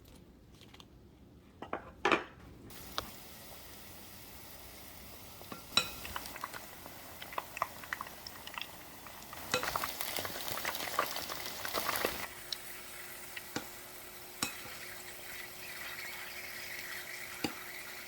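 Battered chicken pieces frying in hot oil, a steady sizzle, with scattered sharp clinks of metal utensils against the pan. A faint steady hum joins about twelve seconds in.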